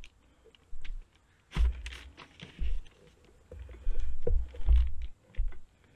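Hands trussing a raw whole chicken with string on a sheet of paper: irregular crinkles and small clicks of the paper and string being worked, with several dull thumps as the bird is handled against the table, the strongest about a second and a half in and again between four and five seconds in.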